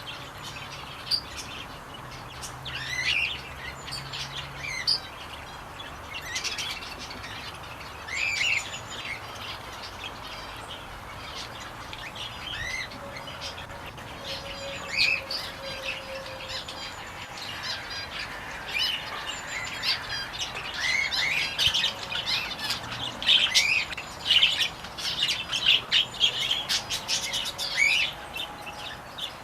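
Many small birds in an aviary chirping and calling with short, quick notes, the chirping growing busier and louder in the second half.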